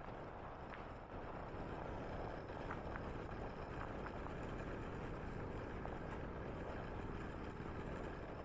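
HOPP electric scooter riding along, a steady rumble of its small wheels rolling over the pavement, with a few light ticks and rattles.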